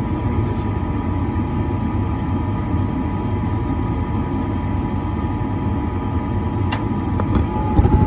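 Trane XE80 gas furnace's inducer motor running steadily while the hot surface igniter heats up. Near the end there is a sharp click, and then the gas burners light and the low rumble gets louder.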